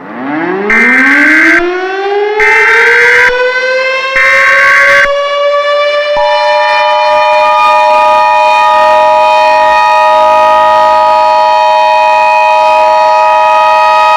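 Emergency Alert System alert audio. A civil defense siren winds up over several seconds and then holds one steady pitch. Three short EAS data-header bursts sound over it in the first five seconds, and the steady two-tone EAS attention signal comes in about six seconds in.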